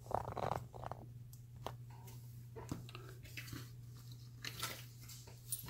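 Faint scraping and small clicks of a thin tension tool being fitted into the keyway of a small brass padlock, over a steady low hum.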